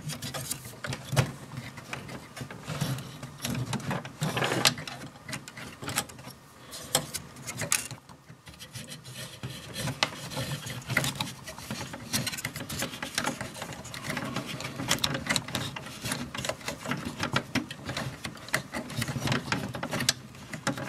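Irregular small clicks, taps and rubbing as fingers work inside an opened CD changer, pushing a rubber drive belt over its pulleys against the plastic and metal parts.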